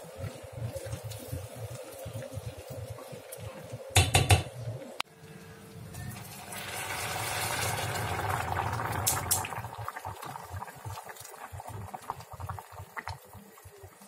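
Water being poured from a kettle into a stainless steel pot of diced vegetables. The splashing pour swells in about six seconds in and eases off toward the end. A brief, loud clatter comes about four seconds in.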